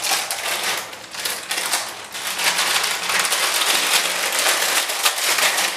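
Clear plastic bag crinkling and rustling loudly as it is handled and rummaged through, with close crackles all the way through.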